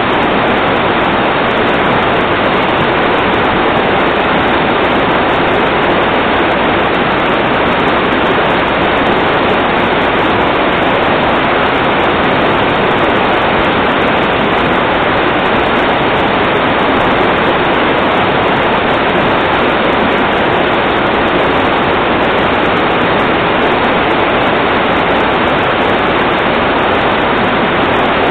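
Steady, loud rushing of water, an even noise that does not change.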